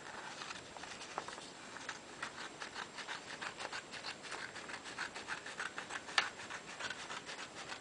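Scissors cutting through a sheet of paper: a steady run of short snips and crisp paper noise, with one sharper snip about six seconds in.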